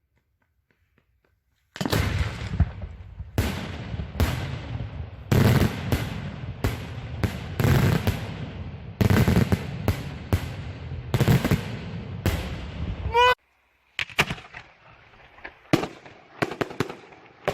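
Fireworks being test-fired: after a short quiet, a rapid run of loud bangs, each trailing off in a low rumble. A brief whistle comes about three quarters of the way through, the sound cuts out for a moment, then lighter cracks and pops follow.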